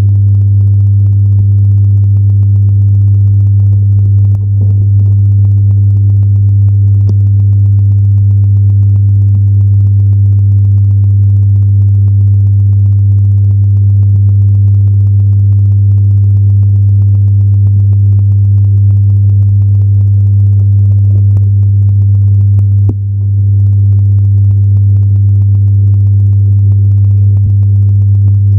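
A loud, steady, low electrical hum with overtones, unchanging throughout, with a few faint clicks.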